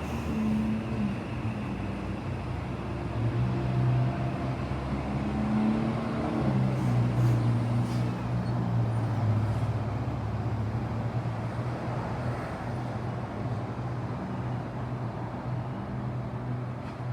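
Train running at the station with a steady low mechanical hum whose pitch steps up and down a few times.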